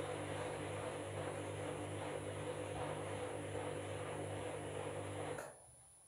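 Candy front-loading washing machine's motor humming steadily as it turns a drum of bedding in the wash, then stopping abruptly with a click about five and a half seconds in as the drum pauses.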